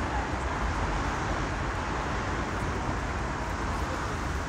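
Steady city street traffic: a constant low rumble of passing cars with no single vehicle standing out.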